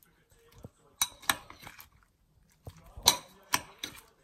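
Metal spoon clinking and scraping against a glass bowl while tossing cauliflower florets in wet batter. There are a few sharp clinks about a second in, and a quicker run of them around three seconds in.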